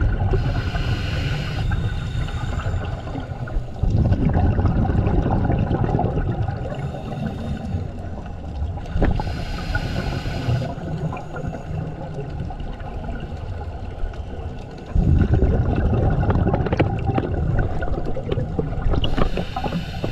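Scuba divers' exhaled bubbles bubbling and gurgling, heard underwater. A regulator hisses with an inhaled breath three times, about every nine to ten seconds.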